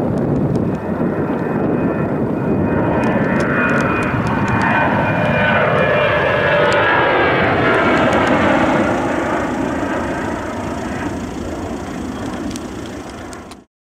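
Boeing 737-800's CFM56-7B turbofan engines climbing out after takeoff: a loud jet roar with whining tones that slide down in pitch as the plane passes overhead. The roar fades, then cuts off suddenly near the end.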